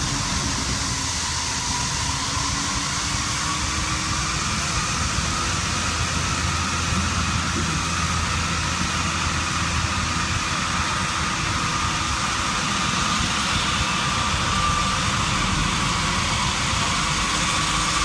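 Small tractor's engine running steadily while towing a working mini round baler through cut grass.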